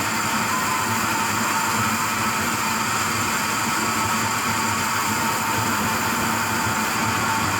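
Steady machine noise, even and unbroken, with a faint steady hum.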